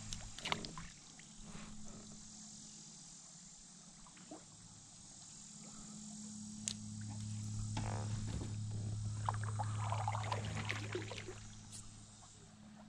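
Faint trickling and light splashing of creek water around a kayak, over a steady low hum that grows louder in the second half.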